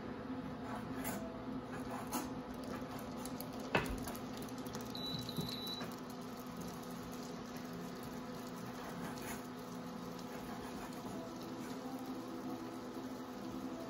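A portable induction cooktop's touch control beeps briefly, a short high-pitched tone about five seconds in, as it is pressed. Around it are faint taps and knocks of kitchen work over a steady low hum, with one sharp knock just before the beep.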